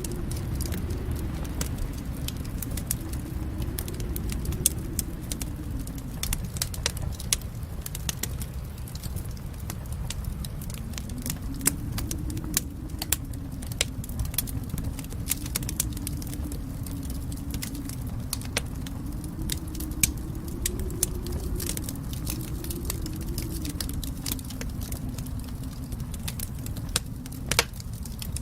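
Wood fire crackling, with sharp pops scattered through it over a steady low rumble.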